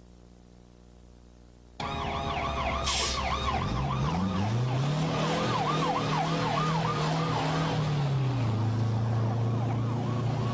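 Several emergency-vehicle sirens wailing and warbling together, starting abruptly about two seconds in. Underneath runs a deeper tone that rises and falls, then holds steady.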